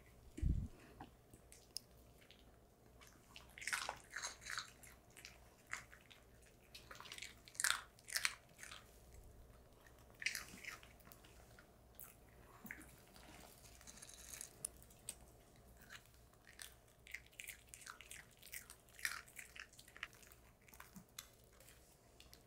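Small dogs, a poodle and a Maltese, chewing hand-fed treats: irregular clusters of crisp crunches and bites. There is one soft low thud about half a second in.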